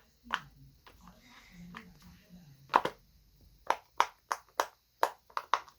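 Bubbles of a silicone pop-it fidget toy being pressed: a string of short sharp pops, sparse at first and coming faster and closer together in the second half.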